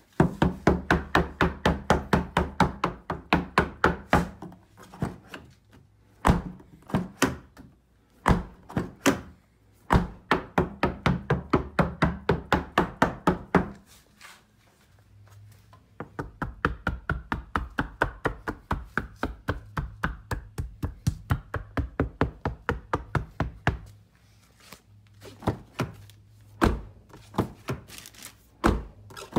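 Background music with a fast, steady beat of sharp clicks, about four to five a second, over a stepping bass line, dropping out briefly a couple of times.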